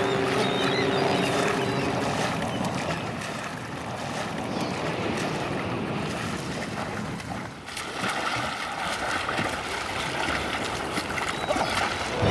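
Seawater splashing and churning as a swimmer thrashes his arms in the waves.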